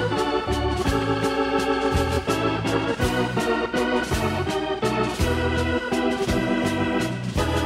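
Outro music: sustained chords over a steady drum beat and bass line.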